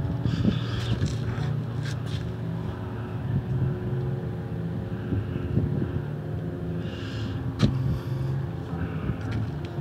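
Steady low hum of an idling vehicle engine, with a few light knocks over it.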